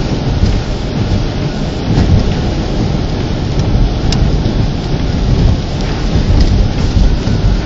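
Thunderstorm noise: heavy rain and a steady, loud, low rumble of storm wind buffeting the microphone, with a single sharp tick about four seconds in.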